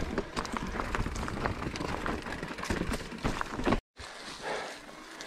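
Electric mountain bike ridden over a rough trail: tyres crunching over stones and the bike rattling, with a low rumble underneath. Just under four seconds in the sound cuts off and comes back quieter, as tyres roll over a trail of dry fallen leaves.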